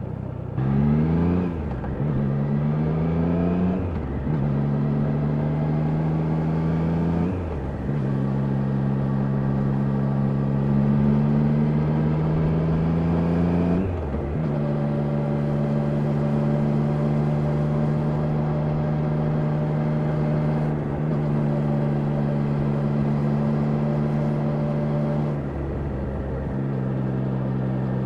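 Triumph Daytona 660's inline three-cylinder engine pulling hard through the gears, its pitch climbing and then dropping with each upshift, four times. It then settles into a steady cruise, with a brief lift of the throttle near the end.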